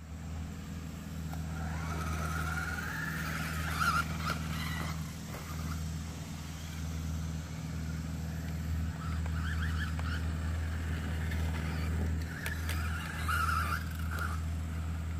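Electric whine of an RC stadium truck's 17.5-turn sensored brushless motor and drivetrain, rising and falling as the truck accelerates and slows. It comes in three runs: about two to five seconds in, around ten seconds, and thirteen to fourteen seconds. A few sharp clicks come in between, over a steady low rumble.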